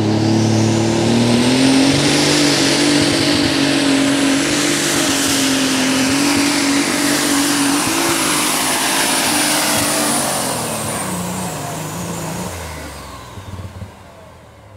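Super Stock pulling tractor's multi-turbocharged engine at full throttle, pulling the brake sled, a steady high engine note with a high turbo whistle over it. About eleven seconds in, the engine comes off throttle and the sound drops in pitch and fades away.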